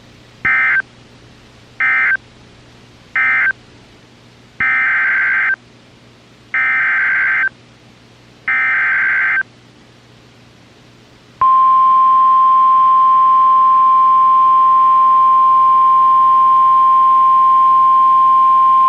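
NOAA Weather Radio SAME data bursts: three short end-of-message bursts, then three longer header bursts announcing the next alert. About 11 seconds in, the steady 1050 Hz weather radio warning alarm tone starts and holds one pitch.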